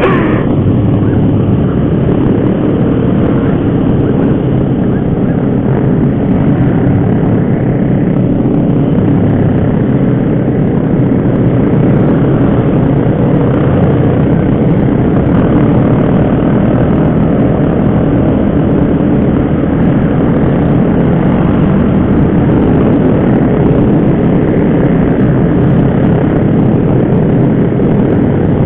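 Steady wind rush over the microphone while riding a Yamaha MX underbone motorcycle, with the engine running underneath.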